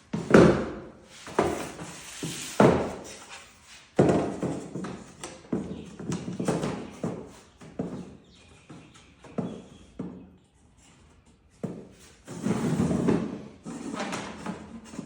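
Panels of a CatCubby modular cat house being handled and fitted together, with connecting pins pushed into their sides: a string of irregular knocks and thunks with rustling handling noise between them.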